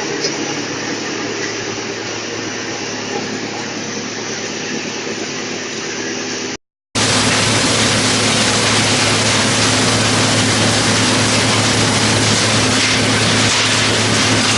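Drum wood chipper running with a steady machine drone. The sound cuts out for a moment about halfway through and comes back louder.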